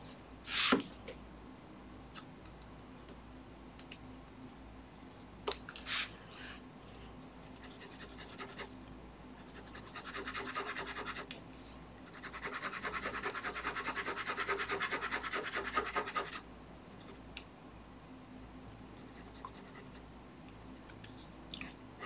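Ink pen scratching across the card of a comic book sketch cover. There are a couple of single quick strokes, then rapid back-and-forth hatching strokes: about a second of it, then after a short pause about four seconds more.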